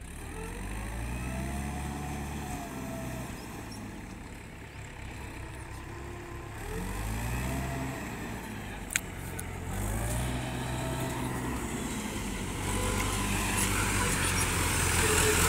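Mahindra tractor's diesel engine revving in repeated surges as it drives through shallow water and mud, getting louder as it comes near. There is a single sharp click about nine seconds in.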